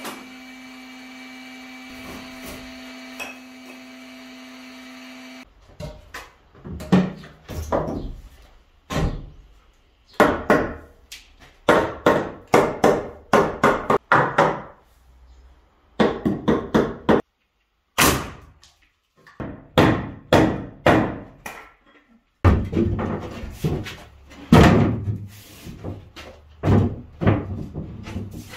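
Hand-hammer blows and knocks on a wooden door frame and old mud-plaster wall, irregular and in quick clusters, with some scraping, as the wall is broken back to enlarge the doorway. A steady hum runs for the first five seconds before the knocking starts.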